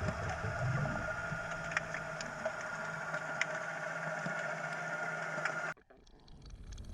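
Steady drone of a motorboat engine, with faint scattered clicks over it, that cuts off suddenly about six seconds in.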